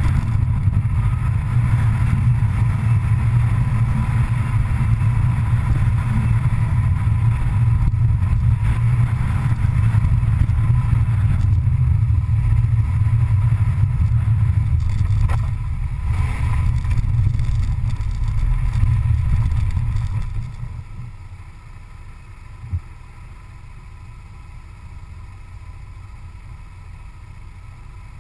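A vehicle drives at speed, with a steady low rumble of engine, road and wind noise on a camera mounted on the vehicle. About 20 seconds in the rumble fades away to a much quieter steady background, and a single sharp click follows a couple of seconds later.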